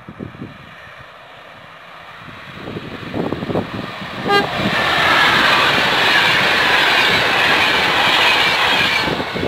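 Electric locomotive hauling passenger coaches approaches and passes at speed. It gives a very short horn toot about four seconds in, as it draws close. Loud rushing and rattling of wheels on rail follows as the coaches go by, dropping off suddenly near the end as the last coach passes.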